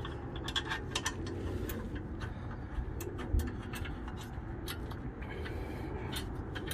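Small metallic clicks and scrapes as a new ball joint's bolt is fitted and threaded in by hand at the steering knuckle, over a low steady rumble.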